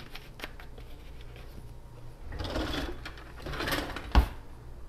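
A few light clicks of a plastic cap being screwed onto a jug, then a kitchen drawer sliding open and shut with a rattle, closing with a sharp thump about four seconds in.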